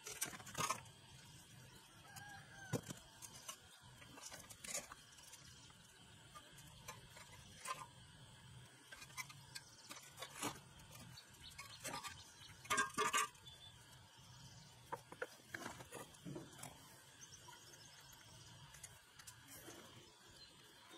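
Scattered metallic clinks and knocks of a hand tool working on the wheel hub and axle of a two-wheel walking tractor. The loudest cluster of clanks comes about two-thirds of the way through.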